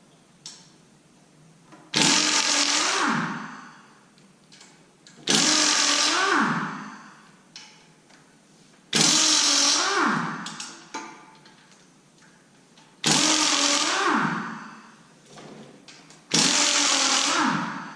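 A power tool run in five short bursts, each spinning up and winding down, as the windage tray nuts on a 6.0 L LS engine are zipped off.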